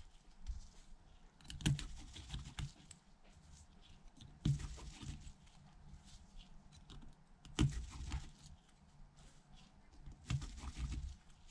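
Light clicks and taps of a precision screwdriver working the tiny screws of an iPhone's earpiece speaker bracket, with four sharper ticks about three seconds apart.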